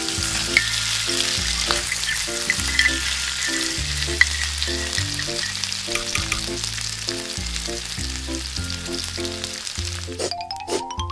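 Hot cooking oil sizzling steadily as small tortilla chip triangles deep-fry in a miniature wok, over background music. The sizzle drops away about ten seconds in, and a short rising whistle-like glide follows.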